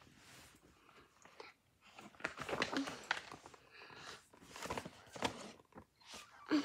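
A large picture book being handled and its pages turned close to the microphone: irregular paper rustling and bumps, loudest a couple of seconds in and again around five seconds.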